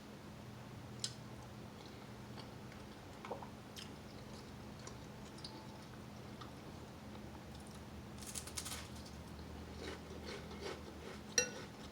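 Quiet eating of soup: chewing and small mouth sounds, with scattered soft clicks. Near the end a spoon clinks once against a glass bowl with a short ring.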